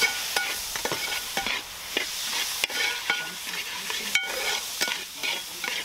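Steel spatula stirring and scraping a thick onion-tomato masala in a metal pot over a wood fire, clinking against the pot, over a steady sizzle of hot oil. A couple of sharper knocks of the spatula on the pot come around the middle. The tomatoes have just gone in and are frying down into the masala.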